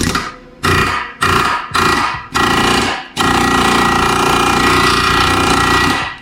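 Impact wrench hammering in five short bursts, then one long run of about three seconds, driving a ball joint removal tool to separate the worn ball joint.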